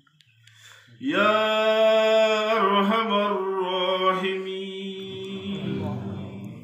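A man's voice chanting one long drawn-out note of a sung Arabic supplication (munajat). The note starts about a second in, holds nearly level with a slight waver partway, and fades near the end.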